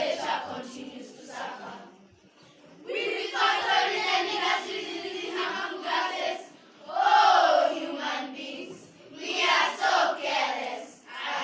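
A group of children's voices calling out together in unison, in loud phrases separated by short pauses.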